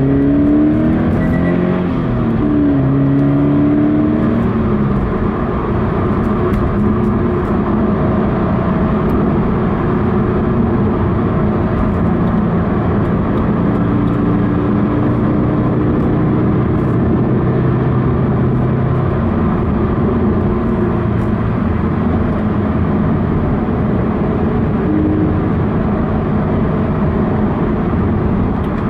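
Toyota 86 / Subaru BRZ 2.0-litre flat-four engine heard from inside the cabin, revving up hard in repeated rising steps over the first few seconds: full-throttle acceleration through the gears. It then runs steadily at speed over road and tyre noise.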